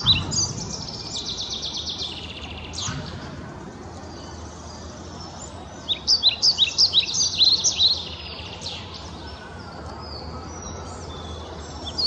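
Superb fairy-wren song: a rapid series of high, sharp chirps running into a fast trill, then a quieter stretch, then another burst of chirps about six seconds in and more near the end.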